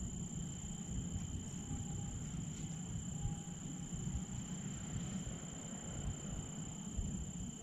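Crickets trilling steadily, a continuous high-pitched chirr, over a low uneven rumble on the microphone.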